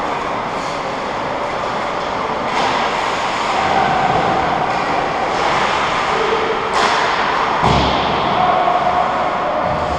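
Ice hockey rink ambience: a steady hum of the arena with several sharp clacks of sticks and puck on the ice, and a dull thud about eight seconds in.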